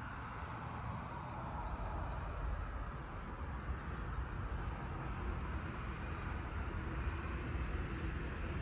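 River water flowing: a steady rushing with a deep low rumble underneath, and a faint high bird chirp now and then.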